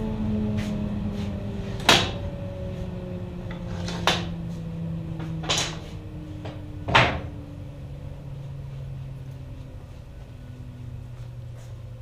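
Table saw winding down after being switched off, a hum that falls slowly in pitch. Over it come four sharp wooden knocks, about every one and a half to two seconds, as ripped strips are handled.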